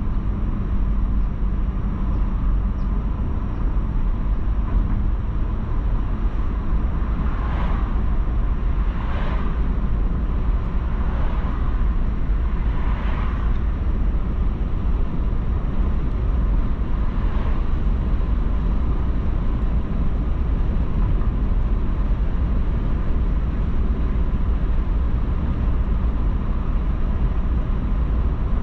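A car driving along, giving a steady low rumble of engine and tyre noise. A handful of brief swishes come through in the middle stretch.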